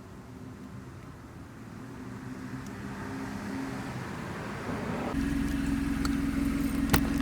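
A car engine running at a steady idle that comes in abruptly about five seconds in, after a faint low rumble that slowly grows louder. A single sharp click sounds near the end.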